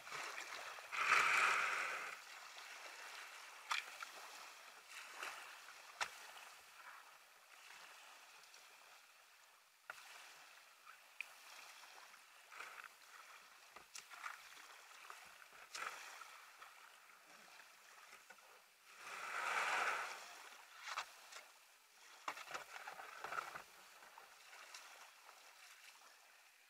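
Water sounds around a sea kayak in the shallows: a loud paddle splash about a second in, then water lapping at the hull with scattered small knocks, and another loud splash about two-thirds of the way through as the paddler gets out into the water.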